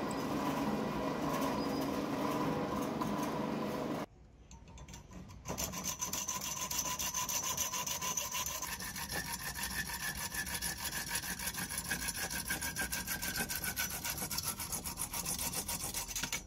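A drill press runs as its bit bores through white knife-handle scales, then cuts off abruptly. After a short pause, a hand hacksaw cuts through a thin metal rod held in a bench vise, with steady, quick back-and-forth strokes for the rest of the time.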